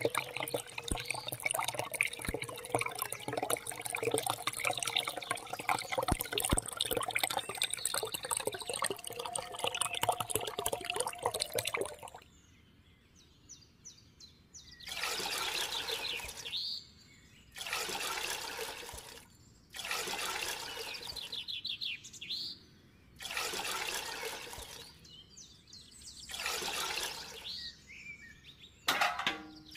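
Liquid runs steadily from a thin plastic hose into a small plastic tub. About 12 seconds in it stops, and several short splashing spells of liquid follow, each a second or two long, with quiet gaps between, as a tiny bucket is dipped in and lifted out.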